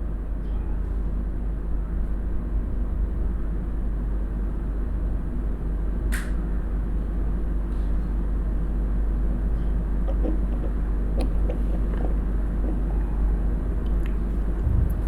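Steady low rumble with a faint hum, with one sharp click about six seconds in and a few faint ticks later on.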